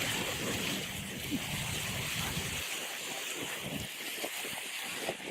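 Sea water splashing and washing around, with a steady hiss and a low rumble that stops about two and a half seconds in.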